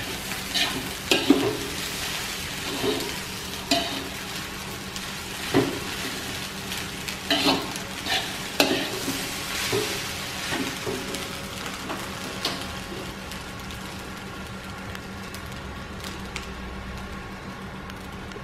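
Fried rice with shrimp and chicken stir-frying in an aluminium wok. A metal spatula scrapes and knocks against the pan at irregular intervals over a steady sizzle. The strokes stop after about twelve seconds, leaving the sizzle and a steady low hum.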